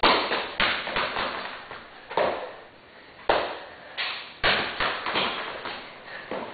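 Soccer ball being kicked and bounced by a player's feet on a concrete garage floor: about seven sharp thuds at irregular intervals, each trailing off in the garage's echo.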